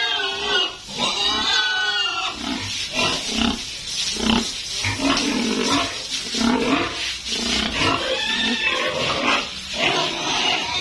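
Several pigs squealing and grunting over one another. The high squeals come in the first two seconds and again near the end, with lower, shorter grunts in between.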